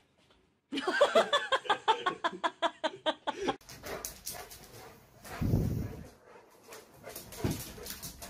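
A pet's rapid run of short, pitched cries, about five a second, lasting about three seconds, followed by two dull thumps.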